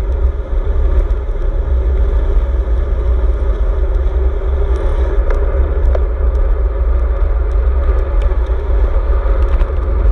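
Wind buffeting a handlebar-mounted GoPro's microphone on a moving road bike: a loud, steady, deep rumble with a hiss of road and air noise over it, and a few faint ticks.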